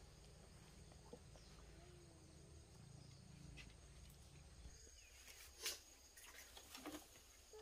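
Near silence with a faint rural outdoor background: a low hum at first, then a faint high steady insect drone from about five seconds in, and a few sharp clicks near the end.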